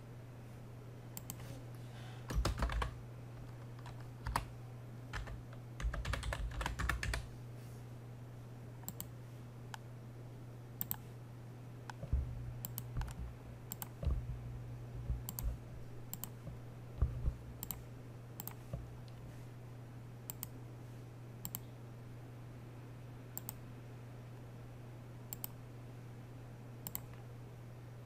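Computer mouse clicks every second or two, with two short runs of keyboard typing in the first several seconds, over a steady low electrical hum.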